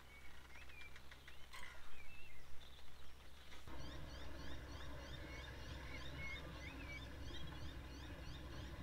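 Birds calling: short whistled notes with a sharp click about a second and a half in. A little after three seconds the background abruptly grows fuller, with a quick run of high, short rising chirps repeating two or three times a second under more whistled notes.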